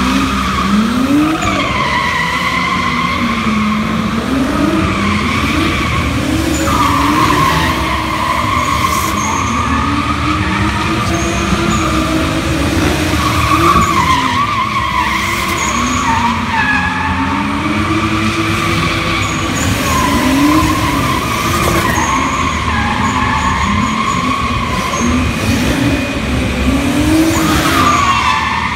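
Sports cars drifting in circles, their engines revving up and down constantly against continuous, wavering tyre squeal.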